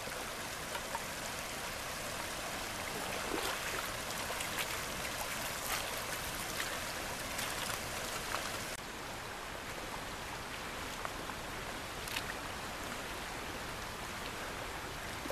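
River water running and rippling over a shallow gravel riffle: a steady hiss with small splashes and ticks. The sound drops abruptly about nine seconds in and turns a little quieter and duller.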